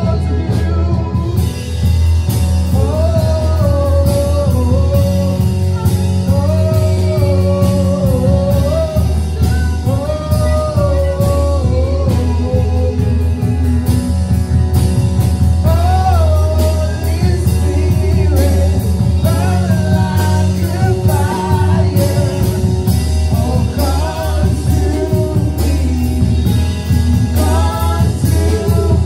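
Live worship band playing a slow song, with a voice singing a gliding melody over guitar and a steady bass.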